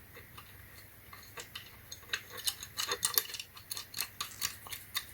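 Irregular small clicks and taps of a solar flood light's mounting bracket and ground stake being handled and fitted together, thickening over the last few seconds.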